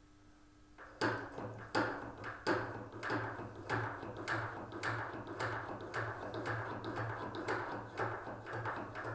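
Oboe reed profiling machine planing the outside of a piece of oboe cane: the blade is drawn back and forth over the cane in even strokes, each a click and a short scraping rasp, about one and a half a second, starting about a second in.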